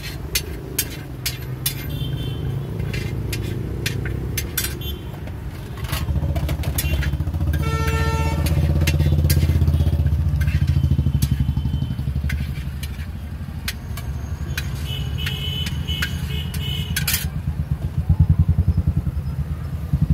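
Low, steady engine rumble of street traffic, with sharp metallic clinks of a ladle and spatula scraping and tapping a large steel pan, thickest in the first few seconds. A brief pitched tone sounds about eight seconds in.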